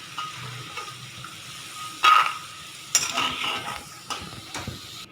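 A metal spoon stirring and scraping food in a kadai over a light frying sizzle, with two loud metal clinks of the spoon against the pan about two and three seconds in.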